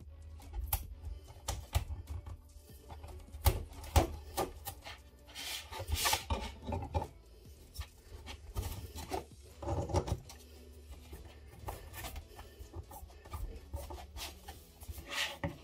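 Hands handling 3D-printed plastic parts on a tabletop: rubbing and scraping as double-sided tape is pressed down, with light taps and knocks as a plastic frame is set onto the base and pressed in place.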